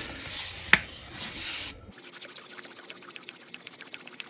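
2000-grit wet sandpaper, damp with WD-40, rubbed back and forth by hand on a chrome motorcycle fork tube to smooth out rust pitting. A scraping hiss with a sharp click under a second in, then from about two seconds in a fast, even rhythm of short strokes.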